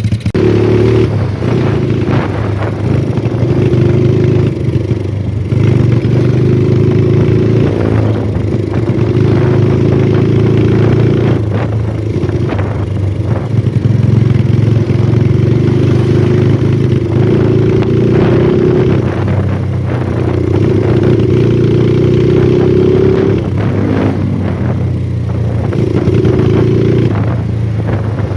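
An engine running loudly and steadily, its pitch wavering and dipping briefly every few seconds, with irregular clatter over it.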